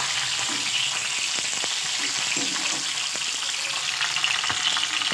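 Pointed gourds sizzling steadily as they fry in oil in an aluminium kadhai, with a few light scrapes and taps of a perforated metal spatula turning them.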